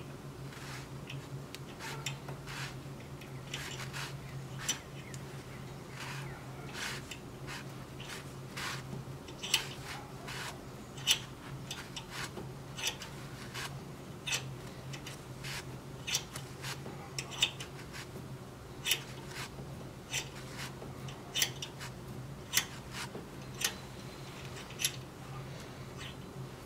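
Hand tap cutting threads into a drilled pin hole in a coolant fitting, turned by a T-handle tap wrench: a string of sharp, irregular clicks and ticks, loudest and most frequent in the middle. A faint steady low hum runs underneath.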